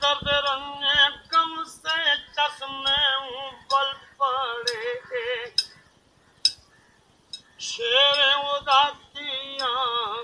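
An elderly man singing a song in wavering phrases, striking a steel rod against the metal bangle on his wrist so that sharp metallic clinks sound now and then. The singing breaks off for about two seconds in the middle.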